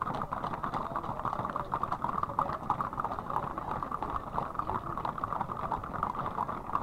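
Hooves of many loose horses walking on an asphalt road, a continuous clatter of overlapping clip-clops.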